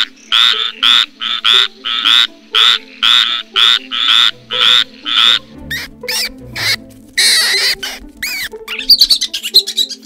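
A frog calling in a rapid series of harsh croaks, about three a second, over background music. After about five and a half seconds the croaks stop and high squeaky chirps and a short hissing burst follow.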